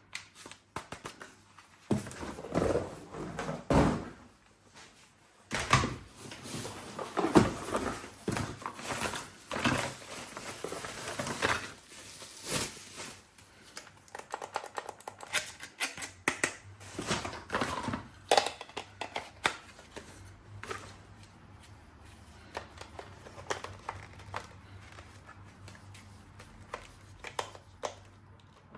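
Toy guns and their packaging being handled: rustling with an irregular run of plastic clicks and knocks, busiest in the first half, then scattered clicks.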